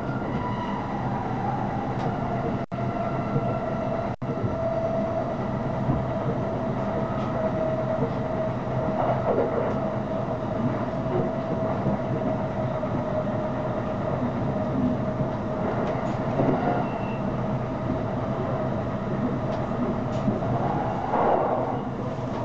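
Shonan-Shinjuku Line electric train running at speed, heard from inside the passenger car: steady rolling rumble of wheels on rails with a steady whine. The sound cuts out for an instant twice a few seconds in.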